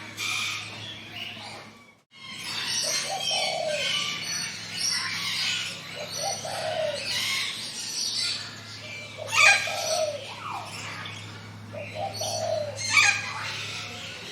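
A chorus of wild birds chirping and singing over one another, with a shorter, lower falling call repeated about every three seconds. The sound cuts out briefly about two seconds in, then resumes.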